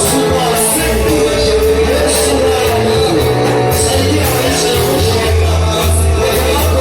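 Music with sustained bass notes and regular cymbal strikes, with voices singing and calling out over it.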